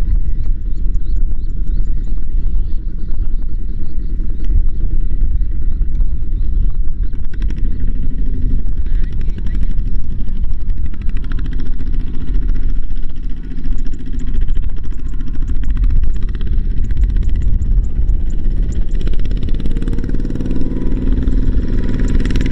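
Two-wheel walking tractor's single-cylinder diesel engine running steadily as it pulls a trailer loaded with rice sacks, a fast even chugging, its pitch shifting near the end.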